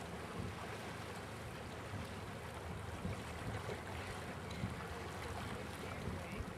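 Steady outdoor wash of wind and sea water along the shore, even throughout with no single event standing out.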